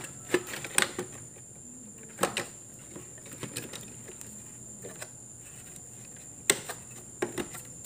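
Scattered sharp clicks and taps of wires and plastic connectors being handled and pressed against an inverter air-conditioner's circuit board, a few near the start and a loud one about six and a half seconds in followed by two more. Under them a steady high whine.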